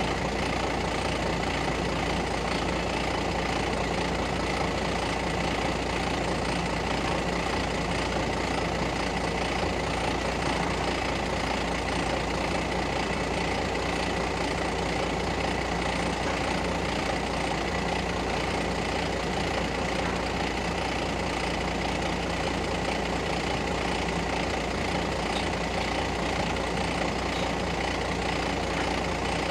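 Mobile crane's diesel engine running steadily, a constant even hum that neither rises nor falls.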